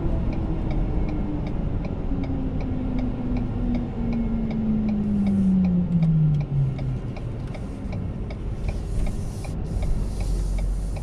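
Inside a moving truck's cab: steady engine and road rumble with a whine that falls in pitch as the truck slows, and the turn signal clicking steadily, a few clicks a second. A hiss of tyres on wet pavement comes in near the end.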